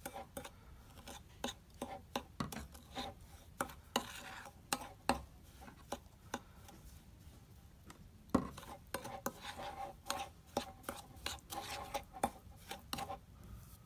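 Metal tablespoon stirring and scraping a damp, gritty mix of baking soda, citric acid and olive oil in a glass bowl, with irregular clinks and scrapes of the spoon against the glass.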